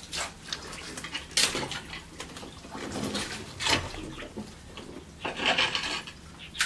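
Shallow water splashing and sloshing irregularly as someone wades in rubber boots and gropes about by hand, with a few clattering knocks among the debris.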